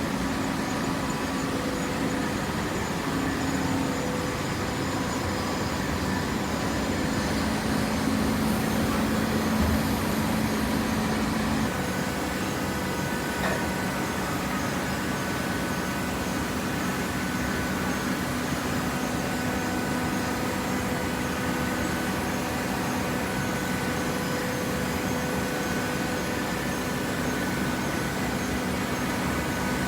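Hydraulic cardboard baler running: the electric motor and hydraulic pump hum steadily, and the hum changes about twelve seconds in.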